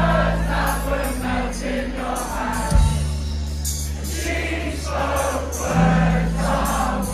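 Live band playing through a festival sound system, heard from inside the crowd: singing over held bass notes and drums, with many voices in the crowd singing along.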